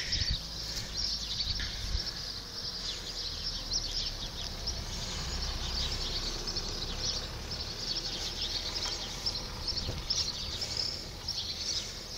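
A busy, continuous chorus of small birds chirping in quick, high calls, over a steady low rumble.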